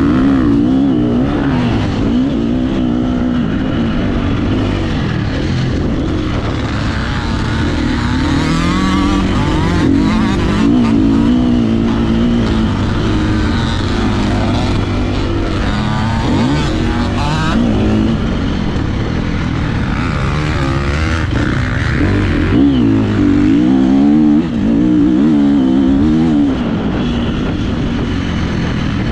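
Four-stroke single-cylinder engine of a KTM 350 SX-F motocross bike heard on board, revving up and down over and over as the throttle is opened and closed around the track. There is a brief drop in level near the end.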